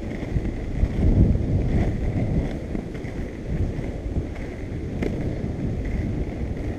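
Skateboard wheels rolling over asphalt: a steady low rumble with a few light clicks, mixed with wind buffeting the microphone.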